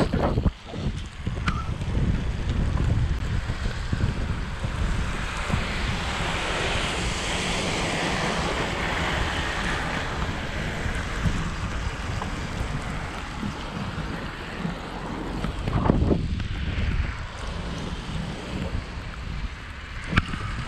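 Wind buffeting a bike-mounted camera's microphone while cycling on a wet, snowy cycle path, a steady rumble and rush with tyre hiss on the wet surface. A couple of louder bumps, near the start and about three-quarters of the way through.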